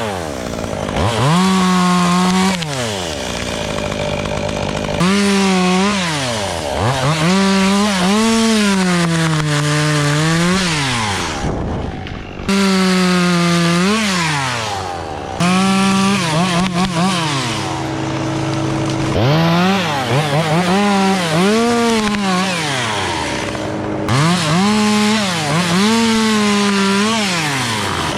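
Two-stroke chainsaw revving up and down over and over, held at full throttle for a second or two each time as it cuts wood, dropping back toward idle in between.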